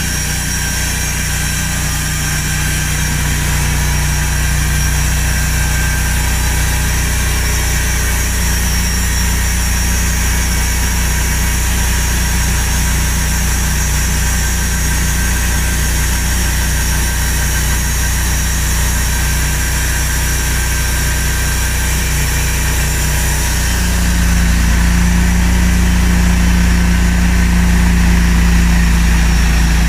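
Large band sawmill running with a steady mechanical drone. About 24 s in, the drone steps up in pitch and gets louder.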